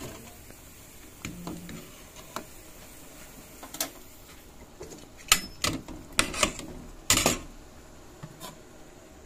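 Steel ladle clinking and knocking against an aluminium pot of meatball soup, a handful of short, irregular metallic clicks, most of them in the second half, the loudest a little past the middle.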